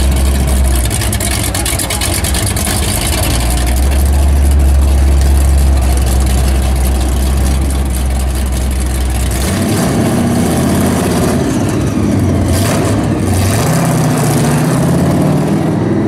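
Supercharged V8 of a Ford Falcon XB-based Mad Max Interceptor replica running through its side-exit pipes as the car rolls off, with a deep, steady note. About ten seconds in the deep note gives way to a higher one that rises as the engine is revved and the car drives away.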